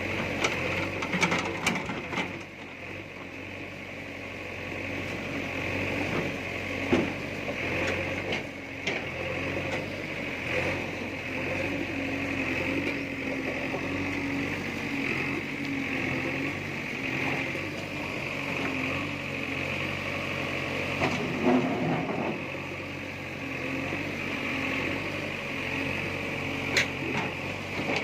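JCB backhoe loader's diesel engine running steadily while the machine works, with a few short knocks scattered through.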